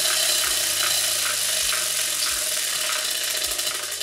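Tabletop prize wheel spinning, its pointer clicking rapidly over the pegs on the rim; the clicks slow and space out as the wheel winds down.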